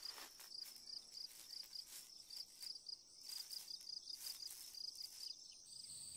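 Quiet insect chorus: a quick, even run of high chirps with a few faint ticks about once a second. Near the end the chirping gives way to a steady high buzz.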